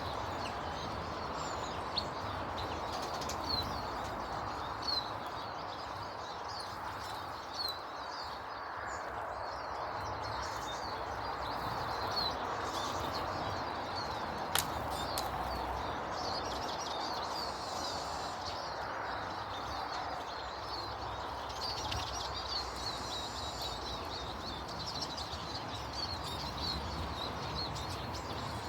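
Many small birds chirping rapidly and continually in high short notes, over a steady rushing background, with an occasional sharp click.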